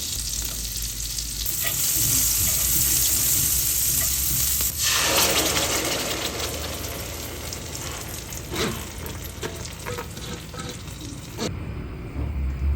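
Food frying and sizzling in a pan while a spoon stirs it. The sizzle grows louder about two seconds in and settles after about five seconds, with scattered taps of the utensil against the pan near the end.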